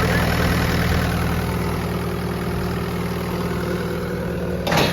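Bobcat T750 compact track loader's Bobcat/Kubota diesel engine idling steadily, growing slightly quieter. A short sharp knock sounds near the end.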